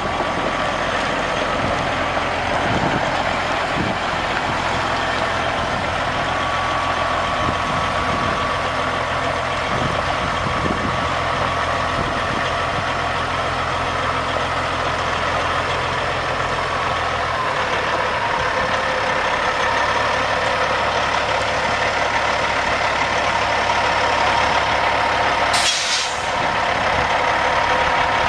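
Semi truck's Caterpillar C15 inline-six diesel idling steadily. Near the end there is a brief burst of hiss-like noise.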